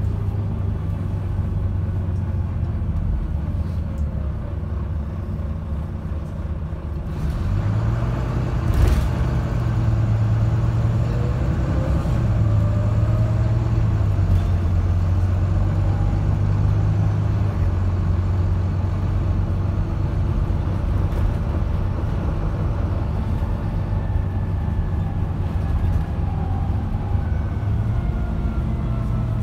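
Volvo B9TL double-decker bus heard from inside the passenger saloon: the diesel engine drones steadily, then grows louder about seven seconds in as the bus pulls away, with a single sharp knock soon after. A faint whine rises and falls in pitch as the bus runs on.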